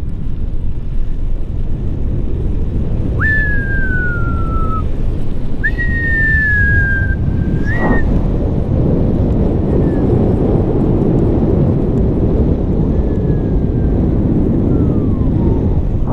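Steady wind noise on the camera's microphone as a bicycle is ridden, with a person whistling: two long notes that slide downward a few seconds in, a short one at about eight seconds, and fainter falling notes later.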